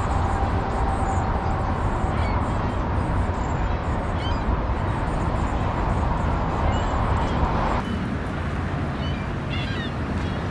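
Outdoor ambience: a steady low background noise with short bird chirps now and then. The background changes abruptly about eight seconds in.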